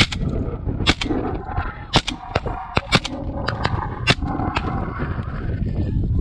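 A volley of shotgun shots fired at geese, about eight sharp blasts in six seconds, some louder and some fainter, with the flock of geese honking overhead between the shots.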